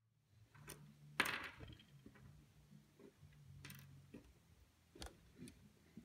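Small metal clicks and taps of a wrench and nut driver working the nuts off a wah pedal's jacks: a few scattered clicks, the loudest about a second in, over a faint low hum.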